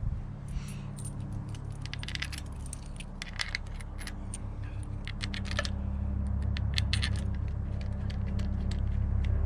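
Light metallic clinking and ticking of small steel tools and parts being handled, in irregular clusters, over a steady low hum that gets louder about halfway through.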